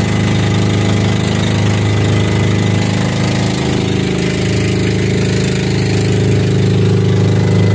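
Diesel engine of a bamboo-outrigger fishing boat (bangka) running steadily under way, a loud, even low drone.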